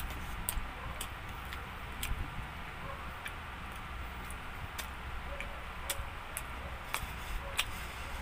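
A person chewing pizza with the mouth close to the microphone: irregular wet mouth clicks and smacks over a low steady hum.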